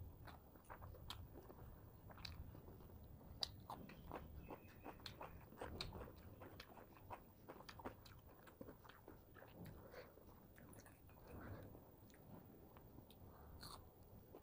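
A person chewing and crunching food close to a clip-on microphone, with many short, sharp crunchy clicks throughout; the sharpest comes about three and a half seconds in.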